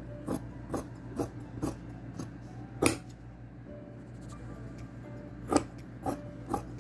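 Large fabric scissors cutting through denim: a run of crisp snips about two a second, a sharper click near the middle, then after a pause three more snips near the end.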